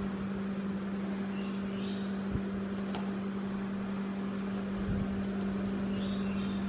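Steady low electrical hum over a background hiss, with two faint soft knocks, one a little over two seconds in and one near five seconds.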